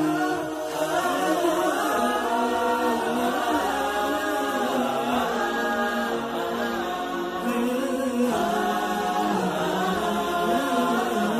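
Vocal religious chanting (a nasheed) sung in long, gliding melodic lines by voices without percussion, used as a programme's opening theme.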